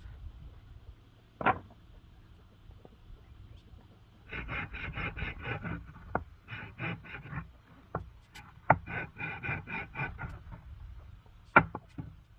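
Hand work on wood or bamboo: two runs of quick, even scraping or rubbing strokes, about six a second, with single sharp knocks between them.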